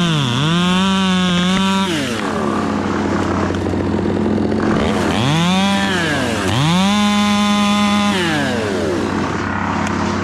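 Chainsaw running hard, its pitch sagging and recovering twice, then falling off to a lower idle about two seconds in. It revs back up around six seconds, holds high for a second or so, and drops again near eight seconds.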